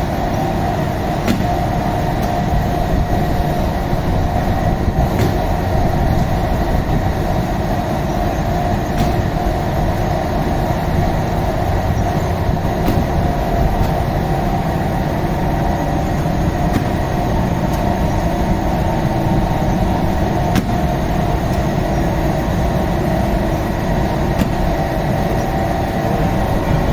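Steady, loud machine-like rumble with a constant hum, and a few light clicks or knocks scattered through it.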